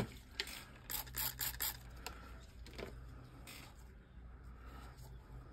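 Faint handling noises: light clicks and rustles of gloved hands moving a silicone mold, mostly in the first two seconds, over a low steady hum.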